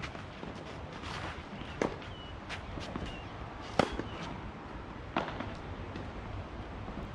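Tennis rally on a clay court: sharp pops of racket strings striking the ball every couple of seconds, the loudest about four seconds in, with footsteps on the clay between shots.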